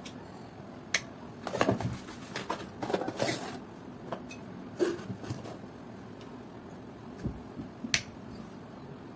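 Scattered clicks and knocks of a plastic hand mixer and its plug being handled and set down on a tabletop, busiest in the first few seconds. A single sharp click about eight seconds in as a switch on a switchboard is pressed.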